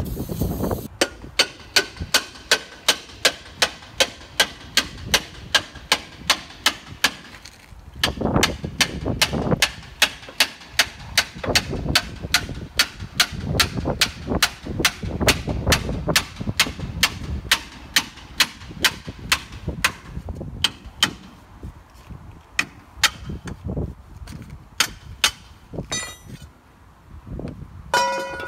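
Repeated sharp metal strikes at a forklift wheel hub, hammer blows at about three a second, then thinning out to a few scattered strikes over the last several seconds.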